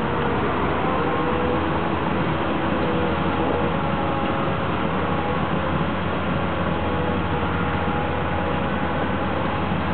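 Heavy construction machinery running steadily: a diesel engine's low drone with a faint whine that wavers a little in pitch.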